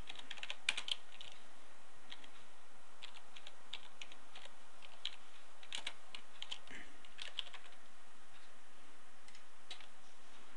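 Typing on a computer keyboard: irregular runs of key taps, then a single click near the end, over a steady background hiss.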